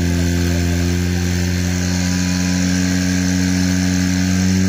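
Portable fire pump's engine running steadily at high revs, pumping water through the attack hoses.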